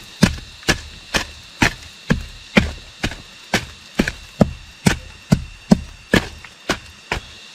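Repeated chopping blows on wood in a steady rhythm, a little over two strokes a second.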